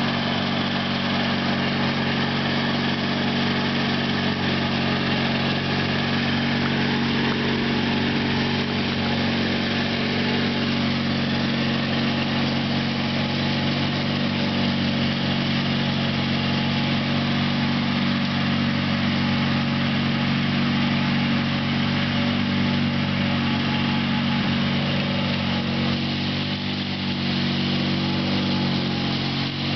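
Small engine running steadily at an even speed, with a brief slight dip in level near the end.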